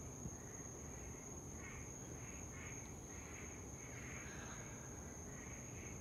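Night-time insect chorus, a steady high-pitched trill, with short animal calls repeating every half second or so, over a faint low rumble.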